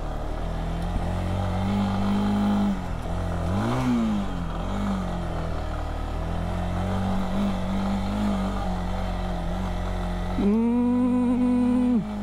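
Lifan KPR 165 motorcycle's single-cylinder engine running under load on a dusty dirt climb, revving up and back down about four seconds in. Near the end a louder, steady, higher tone sounds for about a second and a half.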